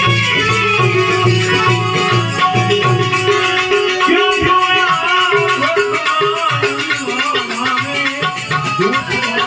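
Indian devotional folk music: held melodic tones over a steady drum beat with rattling percussion, the low drum beat dropping out about three and a half seconds in while the melody carries on.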